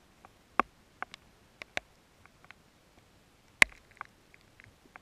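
Scattered raindrops at the start of a thunderstorm, landing on or close to the camera as irregular sharp ticks, about a dozen, the loudest about three and a half seconds in.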